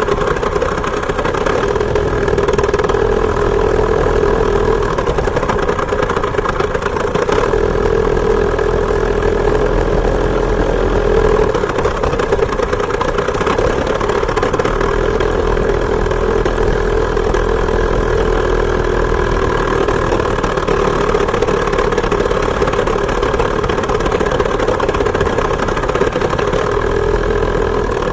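Two-stroke chainsaw engine driving a homemade moped, running steadily under way, its pitch rising and falling slightly.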